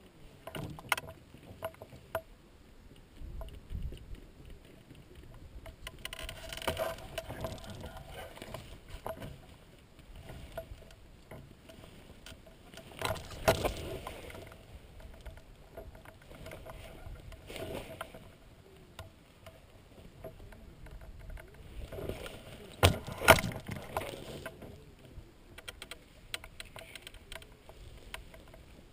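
Irregular rustling and knocking close to the microphone, camera handling and movement in dry grass, with a few sharp knocks, the loudest about 23 seconds in.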